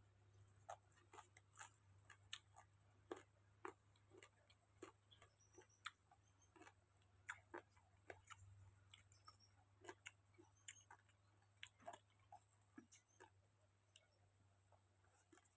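Faint, irregular clicks and smacks of someone chewing food with their mouth close to the microphone, about one or two a second, over a low steady hum.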